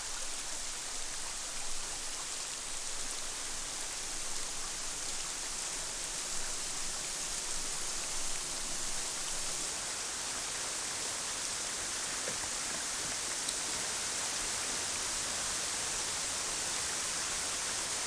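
Shallow rocky stream rushing steadily over stones and a small cascade, an even hiss of running water.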